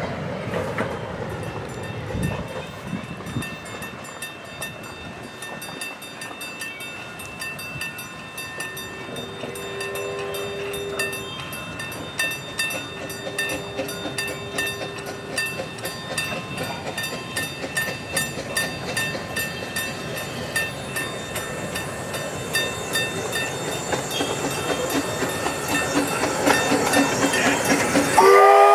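A 16-inch gauge grand scale steam train running past, with an even clicking rhythm that quickens and grows louder as it nears. A held tone sounds twice around the middle.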